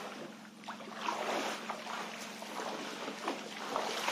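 Shallow seawater splashing and sloshing as swimmers churn it, with a run of small splashes, over a faint steady low hum.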